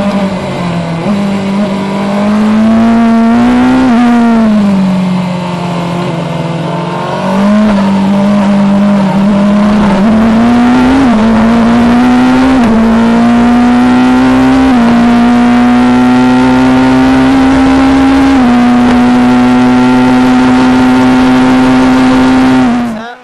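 Onboard sound of a Formula Two car's turbocharged four-cylinder engine at racing speed. The revs fall and the sound quietens for a few seconds about four seconds in, then climb again in steps through the gears and hold high before the sound cuts off suddenly near the end.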